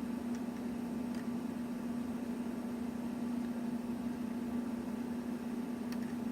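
Steady background hum, with a few faint small clicks of toy parts being handled.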